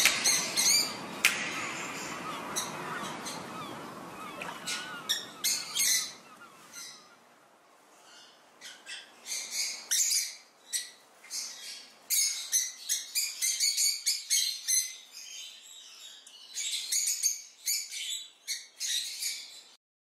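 Rosy-faced lovebirds chirping: many short, sharp high calls in quick runs, with pauses between them. Background music fades out over the first few seconds.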